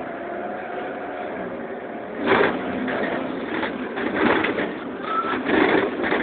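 Inside the cabin of a Karosa Citybus 18M articulated bus: the engine runs steadily, then from about two seconds in there is a series of loud, irregular rattling bursts with a brief squeal.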